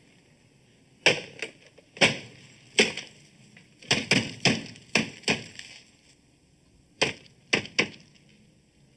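A series of about a dozen sharp knocks and thuds at an irregular pace, coming in three clusters with short pauses between.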